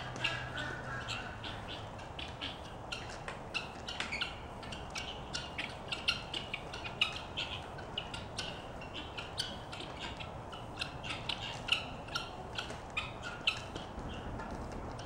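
Backyard poultry squawking and chattering in many short, sharp calls, several a second, overlapping irregularly.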